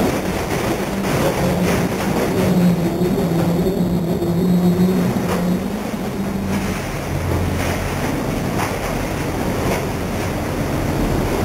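Inside the cabin of a 2003 Porsche 911 GT3 RS spinning after a right-rear tire blowout: the flat-six engine holds a steady note, then drops to a lower note about seven seconds in. Heavy rushing noise from tires sliding and wind runs under it, with scattered knocks.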